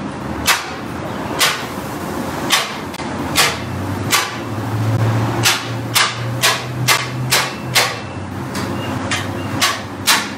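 Metal spatula chopping thick-cut sliced ribeye on a griddle, its edge hitting hard enough to give loud, sharp metallic clangs. The clangs come about once a second at first, then quicker, about two a second, in the second half, with a low steady hum underneath for a few seconds in the middle.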